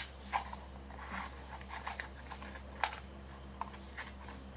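A paper cup's bottom being pierced and a hole worked through it: a sharp click at the start, then scattered crackles and scrapes of the paper, with one louder snap a little before three seconds in.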